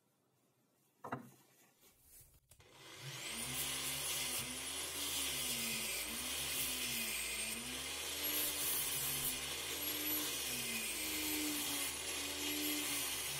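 Angle grinder fitted with a sanding disc winds up about three seconds in and runs steadily as a cut metal bracket is pressed against the disc to smooth its edges; its whine wavers in a regular rhythm about once a second. A single short knock comes about a second in.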